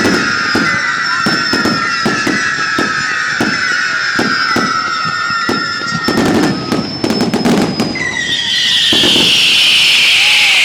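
Fireworks shells bursting in rapid succession, about three loud bangs a second, as in a finale barrage. About eight seconds in the bangs stop and crowd cheering rises.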